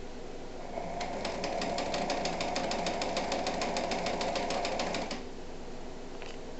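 Singer 306M electric sewing machine running: a steady motor hum with rapid, even ticks of the needle mechanism, about eight a second. It speeds up about a second in and stops after about four seconds.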